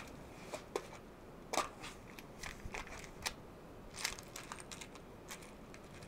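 Scattered light clicks and rattles of small parts handled by hand, as someone sorts through a kit of spare fuses.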